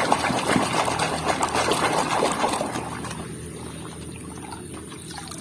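Water pouring and splashing over a plastic toy animal as it is washed clean, dying down to a much quieter trickle about halfway through.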